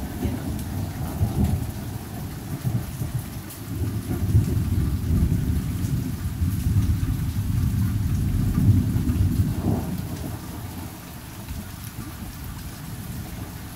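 Thunder rolling over steady rain; the rumble builds through the middle and dies down in the last few seconds.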